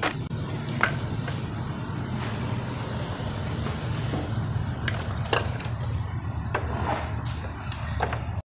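Steady low mechanical hum with scattered sharp clicks and knocks of hand tools on metal, as fasteners are undone on a motorcycle engine's cylinder head. The sound cuts off abruptly at the very end.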